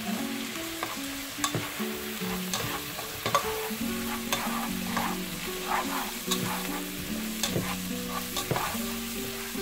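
Chopped onion sizzling in melted butter in a saucepan as it sautés, stirred with a spatula that clicks and scrapes against the pan now and then. A soft melody of held notes plays underneath.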